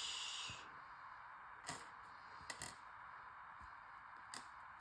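Small steel hex screwdriver bits clicking faintly as they are set down and sorted by hand: a brief soft scrape at the start, then a few separate light clicks.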